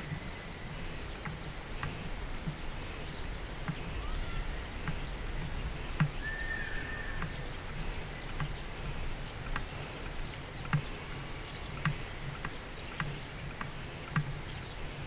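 Footsteps of a person walking at an even pace over packed dirt ground, a little under two steps a second, with one sharper step about six seconds in.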